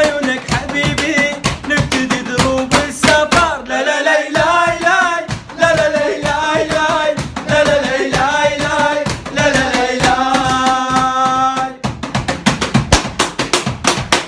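Arabic song: a solo voice sings long, wavering held notes over a fast hand-drum beat. The voice stops about twelve seconds in and the drums carry on alone.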